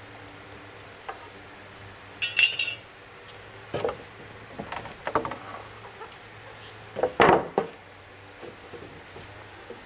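A handful of separate knocks and clinks of objects being handled: a bright clinking about two seconds in, duller knocks around four and five seconds, and the loudest few knocks a little after seven seconds. Under them runs a steady faint hum.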